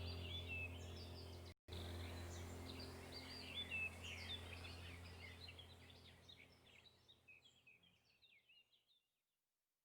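Many small birds chirping and trilling over a low steady hum, with a split-second dropout early on, all fading out to silence shortly before the end.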